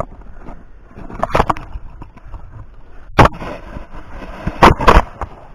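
Handling noise on the camera's own microphone as it is moved about: rustling with sharp knocks, a few about a second in, a loud one past the middle, and two more near the end.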